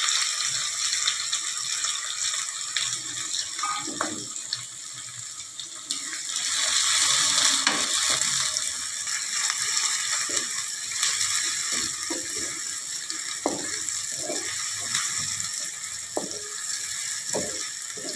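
Sliced onions sizzling in hot oil in an aluminium kadhai, frying toward light brown, with a wooden spatula scraping and knocking against the pan as they are stirred. The sizzle swells about six to eight seconds in, and the scrapes come more often in the second half.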